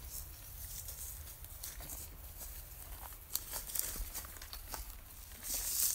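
Footsteps and rustling through grass and undergrowth: irregular crackles and clicks, with a louder rustle near the end.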